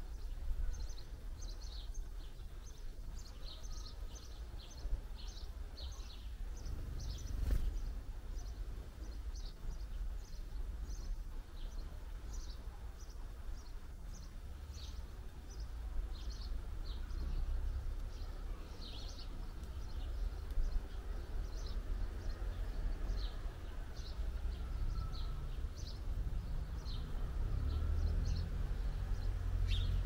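Small birds chirping, a quick string of short high chirps throughout, over a steady low rumble. A single sharp click about seven seconds in.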